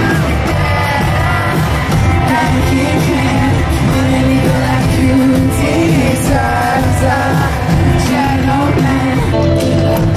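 A male pop singer singing live at the microphone over his electric guitar and a full band, played loud over the stage sound system and recorded from the crowd.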